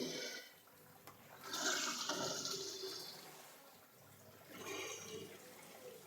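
Water rushing and splashing in a top-loading washing machine's tub, in two surges: a longer one about a second and a half in and a shorter one about five seconds in.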